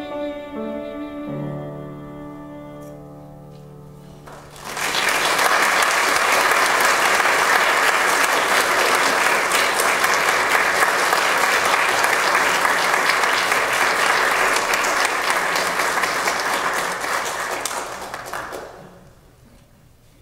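The last held notes of a song on cello and piano fade away over about four seconds. Then audience applause breaks out about four and a half seconds in, keeps up steadily, and dies away near the end.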